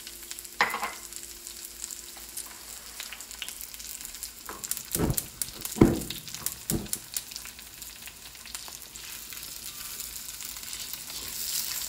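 Chinese sausage and diced onion sizzling in oil in a cast-iron wok. About five to seven seconds in, a spatula knocks against the wok three times, and stirring follows.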